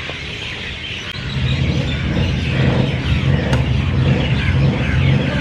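A motor vehicle's engine rumbles low and steady, coming in about a second in, with high chirping behind it. A single sharp click near the middle, a racket striking the shuttlecock.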